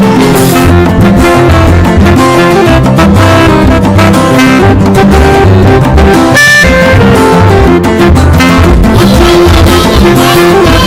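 Upbeat instrumental background music with a steady beat, plucked guitar and horns, with a short break about six and a half seconds in.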